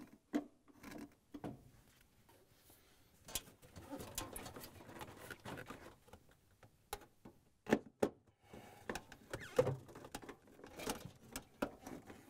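Scattered clicks, taps and rustling of hand work on a refrigerator's evaporator bracket: a quarter-inch nut driver and screws knocking against the bracket and cabinet while the screws are driven in, with a gloved hand brushing against the parts.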